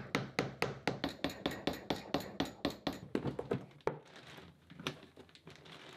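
Rapid, even rasping strokes of a hand saw blade cutting through a plastic keg cap held in a vise, about five strokes a second. They stop near four seconds in, and softer rustling of plastic and foil follows as the cap and inner bag are handled.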